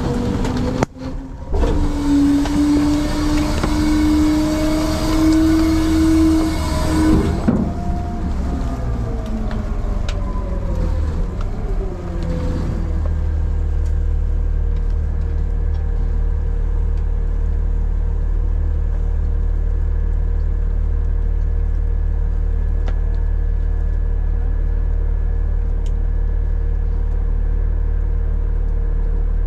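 Front-load garbage truck packing its load: the engine revs up to drive the hydraulic packer, with a rising whine over a loud rush of noise for about seven seconds. It then winds down over the next few seconds and settles to a steady idle hum.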